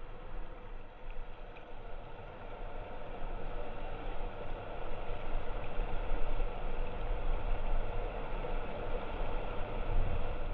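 River current rushing and swirling around a kayak, with a steady low rumble underneath; it grows louder about four seconds in as the kayak draws closer to the rapid.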